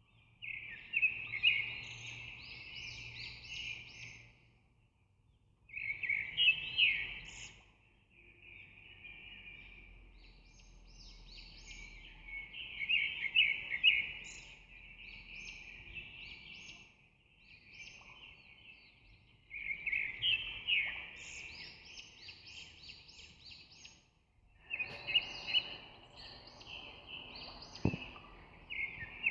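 Small birds chirping busily in quick, dense twitters, in stretches that cut in and out abruptly with brief quiet gaps between them.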